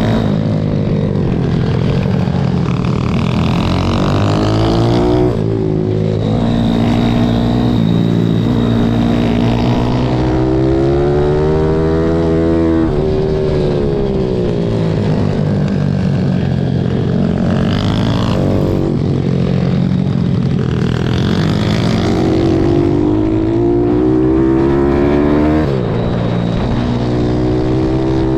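Pit bike's single-cylinder four-stroke engine at speed, heard from on board: it revs up, breaks off at a gear change or a corner, and climbs again over and over, with wind buffeting the microphone.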